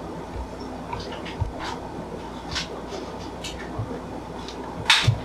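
Faint scattered rustles and small clicks in a quiet room, with one short, sharper rustle about five seconds in.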